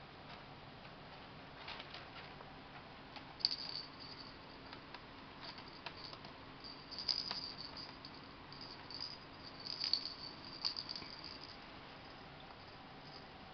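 Kittens playing on a hardwood floor: scattered bursts of scrabbling paws and claws and light clicks and rattles, coming in irregular clusters. A faint steady hum runs underneath.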